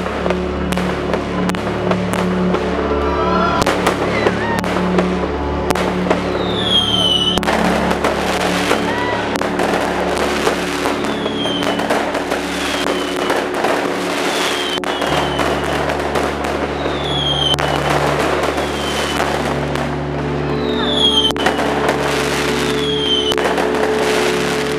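Fireworks display: a dense run of bangs and crackling, with short falling whistles repeating through the second half, over steady background music.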